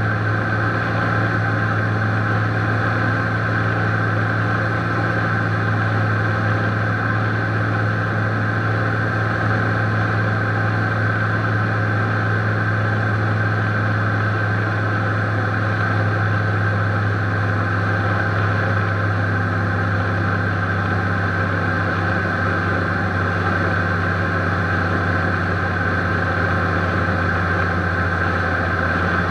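Beechcraft Baron B55's piston engines and propellers running steadily in flight, an even drone heard inside the cockpit.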